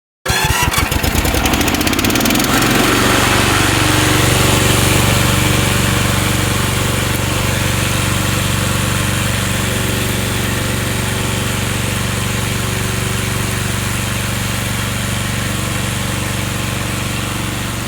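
Remote-controlled lawn mower's engine starting up, its pitch rising over the first couple of seconds, then running steadily.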